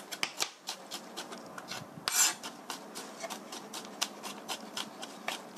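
Chef's knife rapidly mincing garlic cloves on a plastic cutting board: a quick run of sharp taps, several a second, with one longer, louder stroke about two seconds in.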